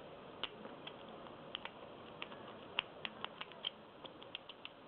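Lock pick and tension wrench working in a round lock cylinder: irregular light metallic clicks and ticks, some in quick pairs.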